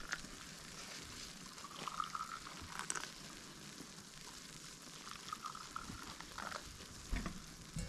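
Faint breakfast-table sounds: a low steady hiss with a few light clinks of tableware scattered through it.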